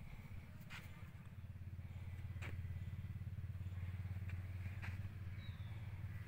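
A vehicle engine running, a low rumble that grows louder about two seconds in and then holds steady, with a few faint clicks over it.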